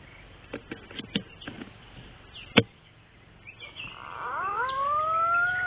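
A single sharp air rifle shot about two and a half seconds in, after a few faint clicks. From about four seconds in come long rising whistled bird calls that grow louder.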